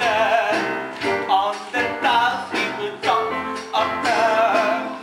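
Stage-musical song: a melody with vibrato in short phrases over band accompaniment.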